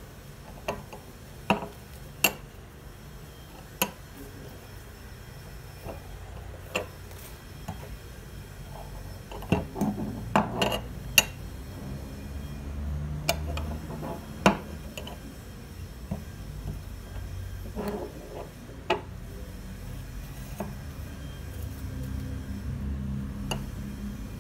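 Metal running medals clinking and tapping against each other and hard surfaces as they are handled: scattered sharp clinks with brief ringing, a quick cluster about ten seconds in, over a low rumble that grows toward the end.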